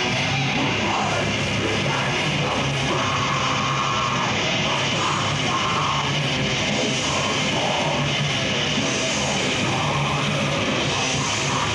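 Death metal band playing live, with electric guitars and a drum kit, loud and unbroken.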